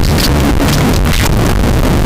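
Loud, heavily distorted electronic music: a dense, harsh wash of noise with irregular hits.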